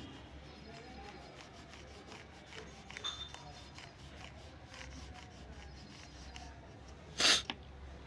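Faint rubbing and scratching of colouring strokes on paper, with one short, much louder scrape about seven seconds in.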